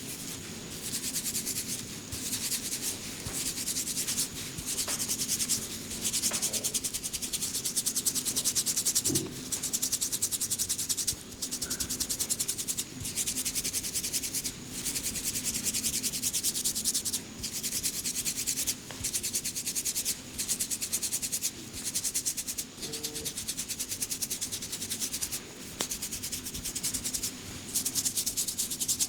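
Hands rubbing briskly over hair and scalp in a head massage: a dry, rasping rub that comes in spells of one to three seconds with short pauses between them.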